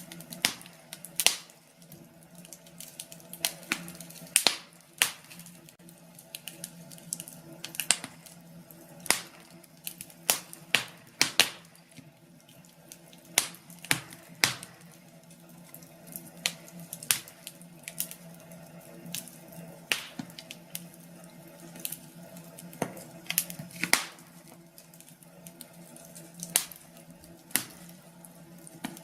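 Fire in a fireplace crackling, with sharp irregular pops a few times a second over a faint steady hum.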